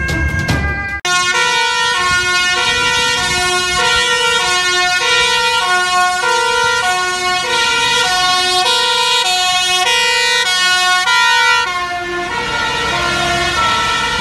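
Two-tone siren of a Dutch fire service truck on an urgent run, switching between a high and a low note a little faster than once a second. Near the end both notes drop lower as the truck passes. The first second holds the end of the intro theme music.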